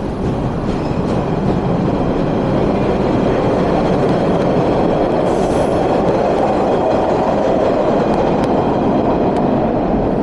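MBTA Orange Line subway train running on the rails. Its rumble grows louder over the first few seconds and then holds steady, with faint clicks and a brief high-pitched squeal about five seconds in.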